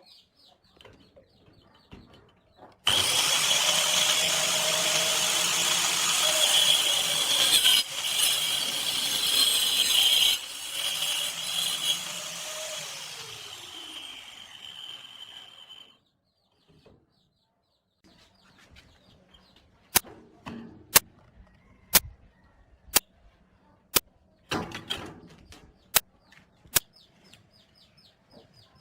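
Angle grinder running under load for several seconds, then switched off, its pitch falling as the disc spins down. Later comes a series of sharp taps, about one a second.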